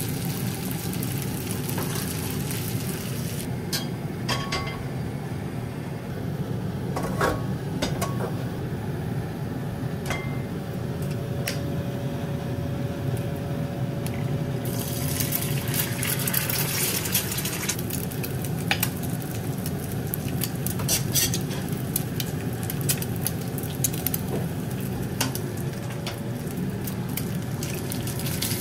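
Metal ladle and utensils clinking against a wok and pans, over a steady low hum. About fifteen seconds in, an egg cracked into hot oil in a cast-iron skillet sets off a loud sizzle that settles after a few seconds into crackling and spattering as it fries.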